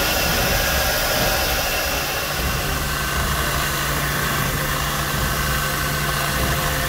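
Belt grinder running, its abrasive belt grinding the edge of a steel knife blank cut from a tractor plow, a steady hiss of metal on the belt. A low steady hum comes in about two seconds in.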